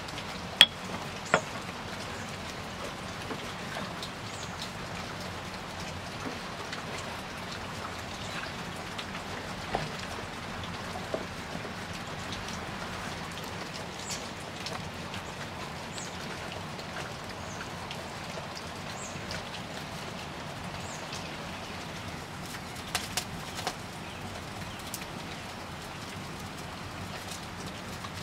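Wood fire crackling and hissing, with scattered sharp pops that are loudest in the first second or two, over the soft mashing of minced meat pounded in a stone mortar.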